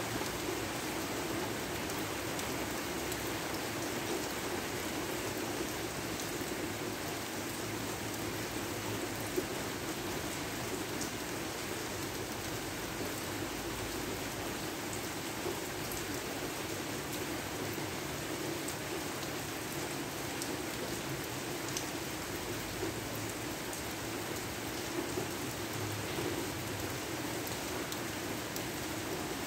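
Steady rain falling, a continuous hiss with scattered drops ticking.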